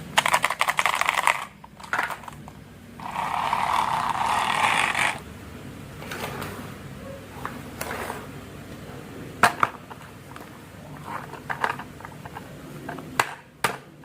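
Marbles rolling and clicking along a wooden marble run. It opens with a quick rattle of clicks, has a steady rolling rush from about three to five seconds in, and ends with scattered single clicks and knocks.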